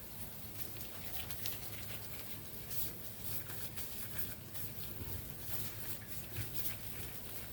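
Chicken empanadas frying in hot oil: a steady sizzle with many irregular crackles and pops, over a low steady hum.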